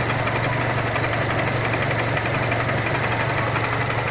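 Renault Symbol 1.6 16V four-cylinder engine running steadily at idle with a fast, regular ticking over it: an unexplained noise whose source the owner is trying to find.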